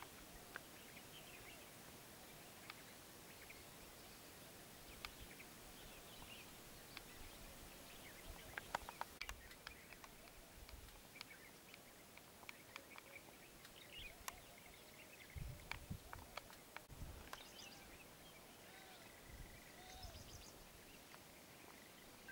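Faint outdoor ambience: scattered bird calls and chirps over a steady hiss, with a few low thumps about two-thirds of the way through.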